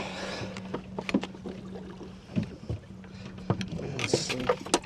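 Sharp knocks and bumps on a fiberglass bass boat's deck as a just-landed bass is handled, over a steady low hum, with a short hiss about four seconds in.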